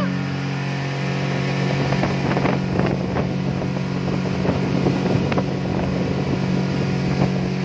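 A 60 hp outboard motor running steadily as it drives the speedboat at speed, with wind buffeting the microphone.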